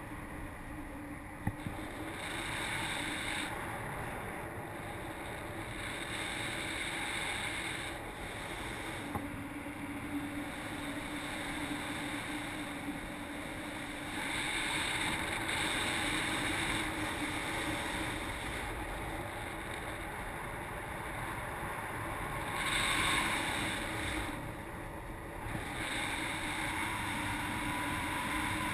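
Wind rushing over an action camera's microphone during paraglider flight, a steady noise that swells and eases in strength and is strongest about two-thirds of the way through.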